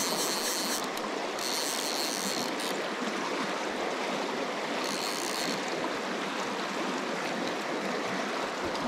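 Fast river water rushing over a shallow riffle, a steady hiss and splash. Three short bursts of high, rapid clicking sound over it, near the start, about two seconds in, and briefly about five seconds in.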